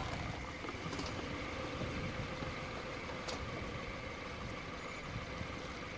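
Subaru Forester's flat-four engine idling with a steady hum and a faint whine. A click about three seconds in fits the driver's door being opened.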